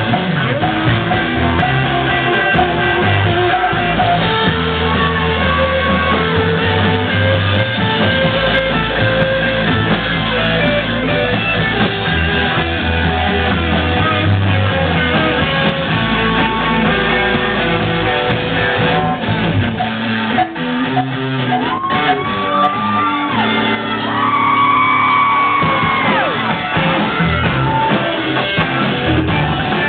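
Live rock band playing loud amplified music, electric guitars to the fore.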